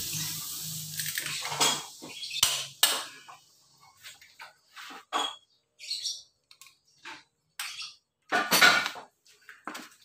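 Torque wrench and socket on the cylinder head bolts of a Mitsubishi L300 diesel engine as the bolts are tightened to torque. The sound is a scatter of short, sharp metallic clicks and clinks with brief gaps between them.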